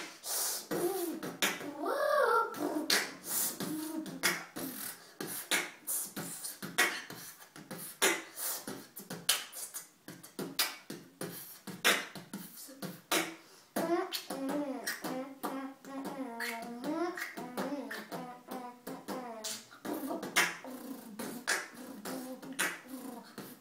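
A boy beatboxing: a fast run of sharp mouth-made drum hits and clicks throughout, with a pitched, wavering vocal line layered in for several seconds around the middle.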